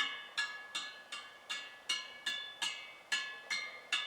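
Steel spokes of a freshly trued 36-spoke Honda 50 wheel sounded one after another, about two and a half a second, each giving a short ringing ping that dies away, all at much the same note. Matching notes are the sign of even spoke tension.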